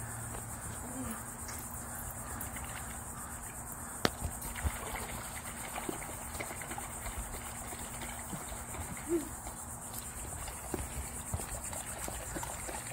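Steady high-pitched chorus of insects chirring, with a sharp click about four seconds in and a few faint knocks.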